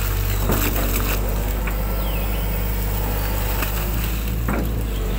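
Hitachi 120 excavator's diesel engine running steadily with a low hum while the arm and bucket work, with a few short knocks, one about half a second in, one about a second in and one near the end.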